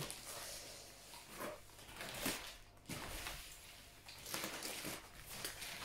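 Large cardboard parcel being handled and shifted, its cardboard rustling and scraping in several irregular bursts.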